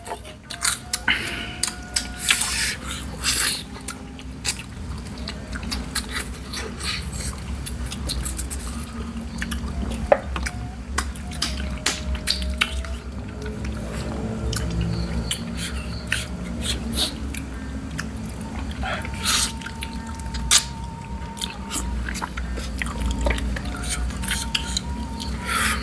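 Wet, close-up chewing, lip-smacking and sucking on spicy chicken feet, in many sharp, irregular smacks, with faint music underneath.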